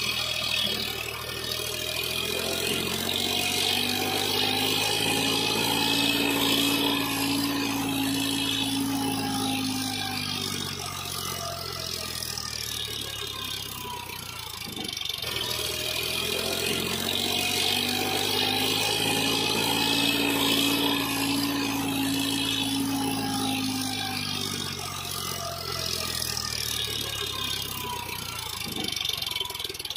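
Engine running, its pitch slowly rising and then falling back, twice over in matching swells.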